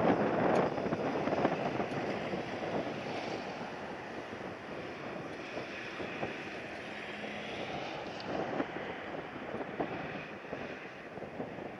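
Strong gusty wind buffeting the microphone: a steady rushing noise that is loudest in the first couple of seconds and then eases, with small swells of gusts.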